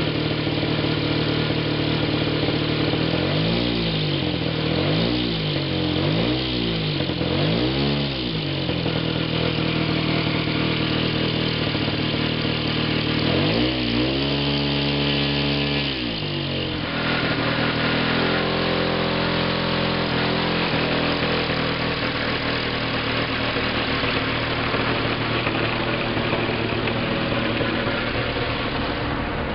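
32 cc Macminarelli two-stroke petrol engine on a large radio-controlled Hawker Hurricane model, turning an 18x10 propeller. It idles, is blipped up and back down about four times in quick succession, then is run up to high revs for about three seconds before dropping back, and runs steadily after that.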